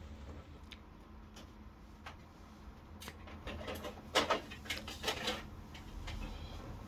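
Plastic parts of an air-conditioner indoor unit being handled during disassembly: scattered light clicks, then a few louder scraping, rustling strokes about four to five seconds in, over a faint low hum.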